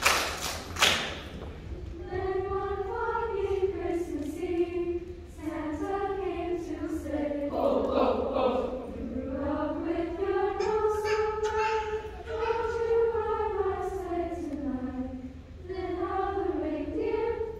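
Middle-school girls' choir singing a slow melody together in long, held notes, after a few claps at the very start.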